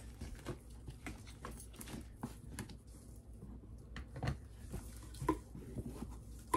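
Scattered light clicks and knocks of toiletry containers being handled and set down in a storage bin, with a louder knock about four seconds in.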